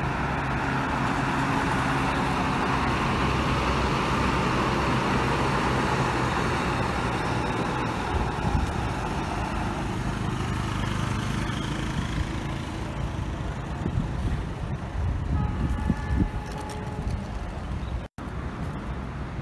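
Large diesel tour bus moving slowly past and pulling away, its engine running steadily. It is loudest over the first several seconds, then fades, leaving fainter traffic sounds.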